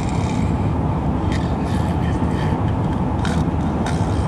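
Steady road and engine rumble heard inside a moving car's cabin.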